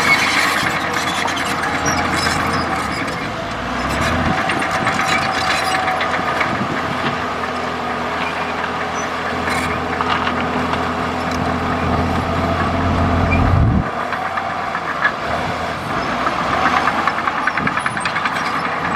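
Komatsu D65E bulldozer's diesel engine running, with scattered knocks. The engine note grows heavier about four seconds in, as if working under load, and drops away abruptly near fourteen seconds.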